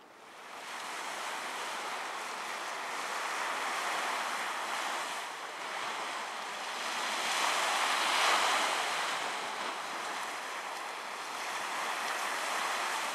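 Small sea waves breaking and washing up on the shore: a steady surf hiss that begins about half a second in and swells, loudest about eight seconds in.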